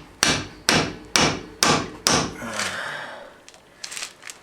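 Metal-on-metal hammer blows, five sharp strikes about two a second, on a welding chipping hammer used in place of a chisel to drive out a part of a truck's front axle. Then a short scraping sound and a few light taps near the end.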